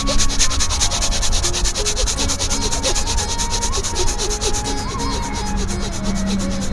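A person doing rapid, forceful in-and-out breathing in an even rhythm of several strokes a second, a yogic pranayama exercise done at full force and speed.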